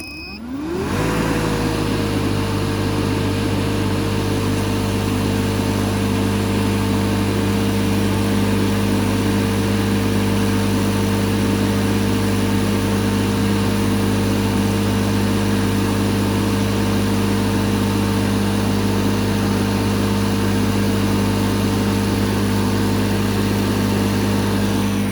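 Refrigerant recovery machine starting up: its motor spins up within about a second and then runs steadily with a hum and a whine while it pulls refrigerant out of the old system into the recovery tank.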